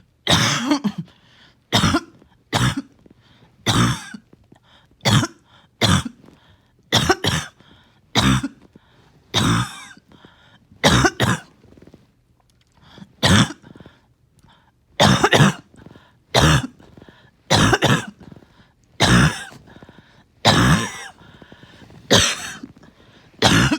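A person's coughing fit: a long run of coughs, roughly one a second, with a short pause about halfway through.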